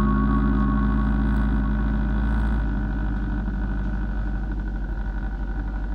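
Small motorcycle engines running as riders pass slowly, with a steady low wind rumble on the microphone. Sustained background music chords sound over it and fade out about halfway, leaving a fast low engine pulsing.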